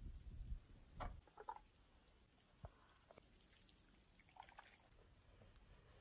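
Near silence, with a few faint, scattered clicks and light knocks.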